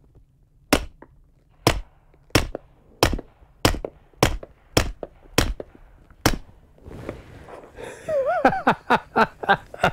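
Nine shots from a Faxon Hellfire FX-19 9mm pistol, fired at an uneven pace about two-thirds of a second to a second apart, emptying the magazine. A man's brief voice and a few lighter clicks follow near the end.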